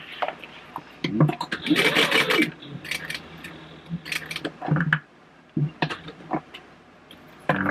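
Industrial sewing machine stitching a purse panel in short runs. Around two seconds in, its motor speeds up and slows down again, with scattered clicks and knocks between the runs.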